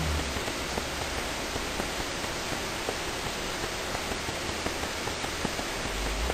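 Steady hiss of background noise, with a few faint clicks.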